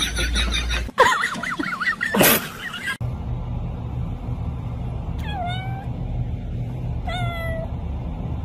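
A tabby kitten meows twice, about two seconds apart, each short call falling in pitch, over a steady low hum. Before it come a few seconds of other wavering cries.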